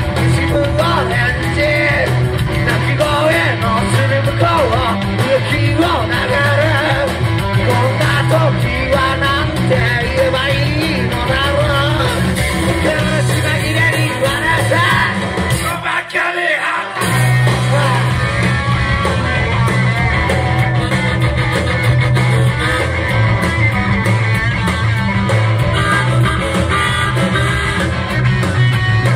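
Live rock band playing, with electric guitar, bass and drums under a singer. About halfway through, the bass and drums drop out for about a second, then the full band comes back in.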